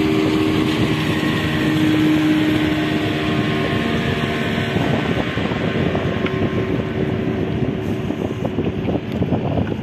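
A boat engine humming steadily over wind and water noise, the hum fading out about halfway through and leaving a rougher, gusting noise.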